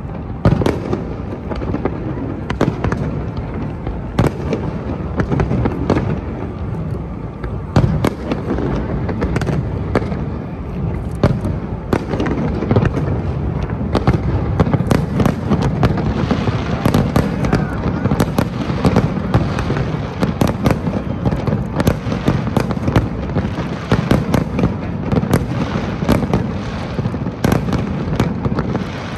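Aerial fireworks display: shells bursting overhead in a continuous run of sharp bangs and crackles over a low rumble, coming thicker in the second half.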